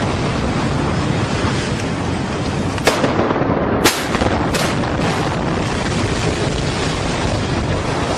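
Buildings being demolished with explosives: a continuous heavy rumble of collapsing masonry, broken by three sharp bangs from the demolition charges between about three and five seconds in.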